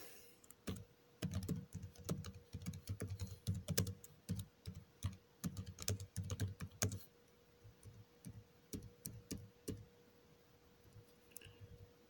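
Typing on a computer keyboard: a quick, uneven run of key clicks for about the first seven seconds, then a few scattered keystrokes that thin out toward the end.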